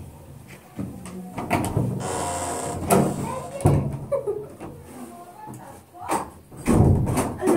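Indistinct voices with several knocks and thumps.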